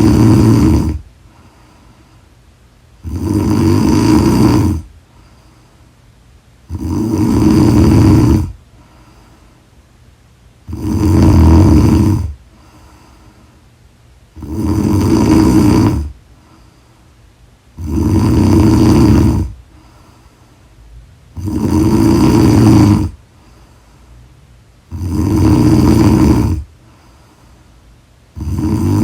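A woman snoring in a steady rhythm: a loud snore with each breath, about one every three and a half seconds and each lasting under two seconds, with quiet breathing between.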